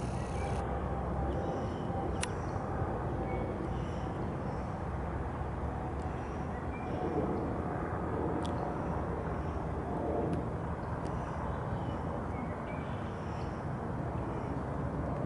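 Steady low rumble of outdoor background noise, with a few faint high chirps and two sharp clicks, about two seconds in and about eight and a half seconds in.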